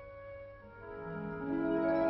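Background music of sustained held notes; about a second in, lower notes come in and the music grows louder.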